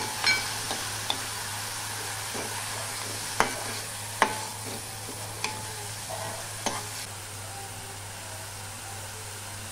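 Okra and a garlic-coconut-chilli paste sizzling in oil in a kadhai while a metal spoon stirs and scrapes through it, with several sharp clinks of the spoon against the pan in the first seven seconds.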